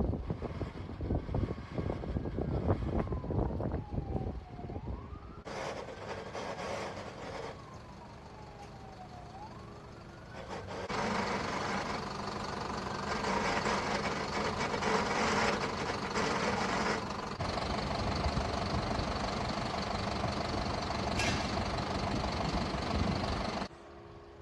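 Fire engine siren wailing, slowly falling and rising in pitch, over wind buffeting the microphone. About eleven seconds in, a loud steady rushing noise with an engine hum takes over and runs until it cuts off near the end.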